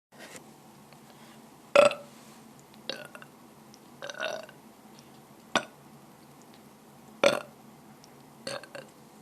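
A person burping over and over: a string of about seven short burps with pauses between, the loudest about two seconds in and again near seven seconds.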